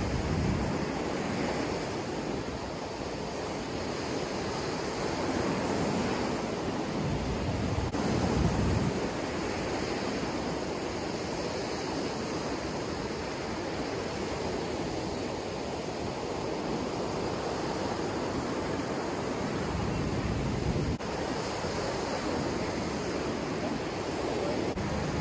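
Rough Gulf surf breaking on the beach in slow, rising and falling surges, with wind rumbling on the microphone.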